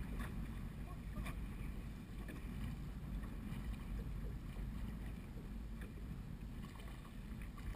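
Wind buffeting the microphone and choppy water slapping against the hull of a small open boat, a steady low rumble with a couple of light knocks early on.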